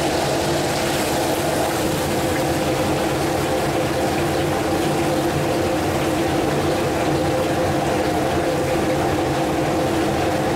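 Steady roar of a kitchen gas wok burner with a constant hum, and hot oil sizzling as battered fish pieces deep-fry in a wok and are lifted out with a wire strainer.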